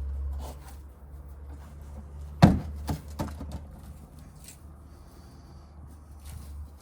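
Hands working through a potato grow bag: light rustling and handling noises, with one sharp knock about two and a half seconds in and a couple of smaller knocks just after, over a steady low hum.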